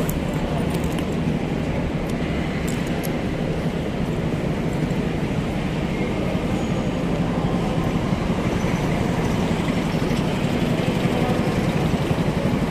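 Motorcycle engine running steadily at low speed, a low even hum that grows a little louder in the second half.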